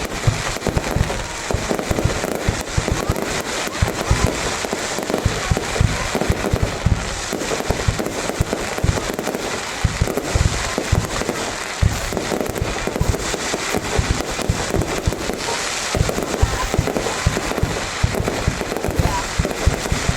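Fireworks going off in rapid succession: a dense, continuous run of bangs and crackles, many each second.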